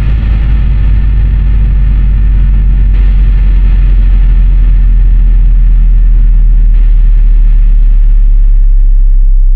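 Loud, harsh distorted noise over a deep steady drone, a noise passage in a goregrind recording rather than played riffs and drums. Near the end the noise fades away, leaving only the low hum.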